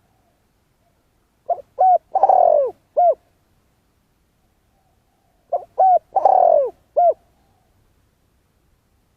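Spotted dove cooing: two identical phrases about four seconds apart, each two short coos, a longer, louder coo that falls in pitch, then one short coo.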